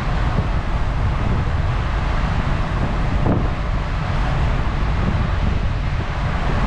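Wind buffeting the microphone in a loud, steady rumble on the deck of a moving ferry.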